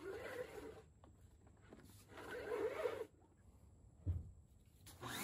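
Recoil starter cord of a pressure washer's small engine pulled twice, each pull a short zipping swish, with no engine running afterwards. A short low knock follows near the end.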